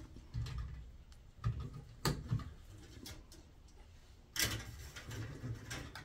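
Hands handling the wire bundle and a pair of diagonal cutters inside a sheet-metal fluorescent light fixture: scattered light clicks and rustles, with a sharper click about two seconds in and a louder, brief rustle about four and a half seconds in.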